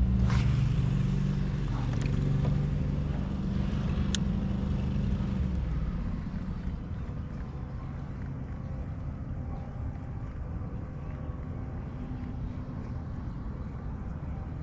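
A low, steady engine hum that fades away over the first five seconds or so, leaving a low rumble.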